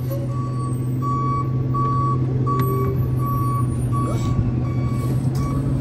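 Rear-loader garbage truck backing up, its reverse alarm beeping steadily at a bit more than one beep a second over the steady running of its engine.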